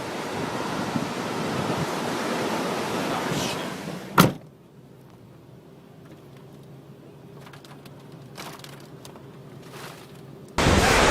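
Strong wind buffeting the microphone as a steady rush, broken by one sharp knock about four seconds in. A much quieter stretch with a few faint clicks follows, and the loud wind rush returns near the end.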